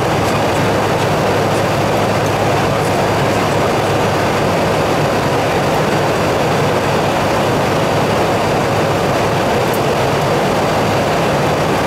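Airliner flight deck in flight: a steady, even rush of airflow noise with a low, constant hum beneath it.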